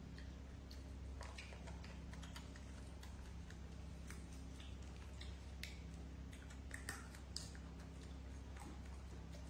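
Faint, irregular clicks and ticks over a steady low hum.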